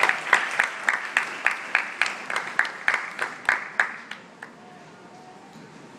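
Audience clapping, with loud sharp claps close by at about three to four a second, dying away about four seconds in.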